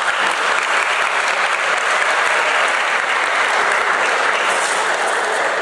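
Audience applauding steadily, with dense clapping throughout.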